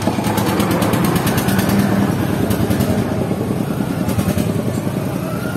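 Street traffic with a motor vehicle engine running close by, a steady pulsing drone with light rapid rattling over it.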